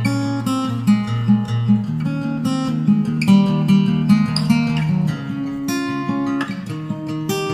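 Background music: strummed and plucked acoustic guitar with a steady beat.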